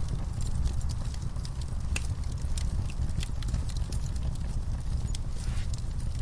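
Log fire burning in a fireplace: a steady low rumble of flame with irregular sharp crackles and pops from the logs, and a short hiss near the end.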